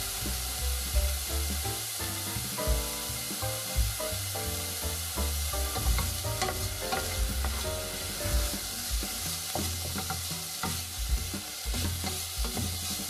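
Diced carrot and other vegetables sizzling in a stainless steel saucepan as a wooden spatula stirs and scrapes through them, with frequent light knocks of the spatula against the pan.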